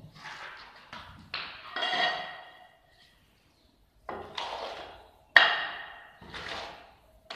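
A steel trowel scraping and knocking in a pan of mortar, about five strokes. Several of them ring briefly with a metallic clink, and the sharpest clank comes a little past the middle.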